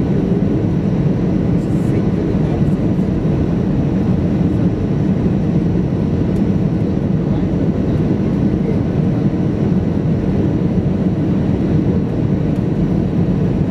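Steady cabin noise of an Airbus A320 on final approach, heard from a window seat beside the wing engine: an even, low drone of engines and airflow that holds constant throughout.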